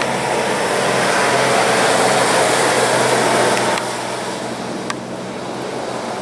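A fire engine drives past with no siren: its diesel engine runs steadily under the hiss of tyres on wet pavement. The sound is loudest in the first few seconds and falls away about four seconds in as the engine moves off.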